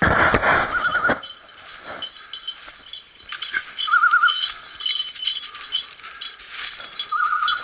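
A hunting dog's electronic beeper collar sounding a short warbling tone about every three seconds. Loud rustling footsteps through dry leaves in the first second.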